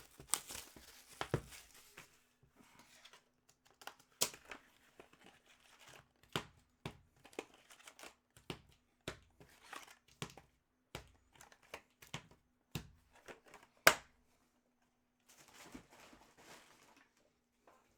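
Trading cards and their plastic and foil packaging being handled: a series of sharp taps and clicks, with the loudest about 14 seconds in, then a stretch of crinkling wrapper near the end.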